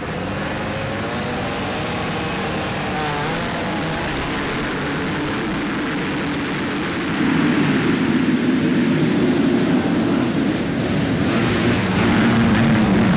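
Several motocross bikes revving hard as a pack, their engine notes rising and falling. The sound gets louder about seven seconds in as the bikes accelerate away.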